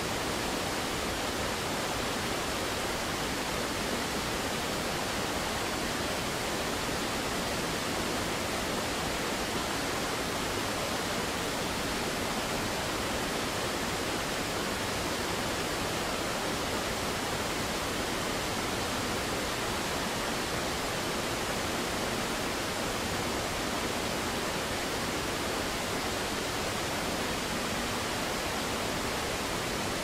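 Low, wide waterfall pouring over rock ledges into a rocky creek: a steady, even rush of falling and churning water.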